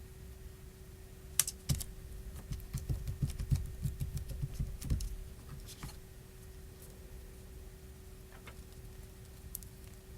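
Light clicks and taps from handling small parts during a phone battery swap, with two sharp clicks and then a quick run of soft taps in the first half and a few scattered clicks later. A steady low hum runs underneath.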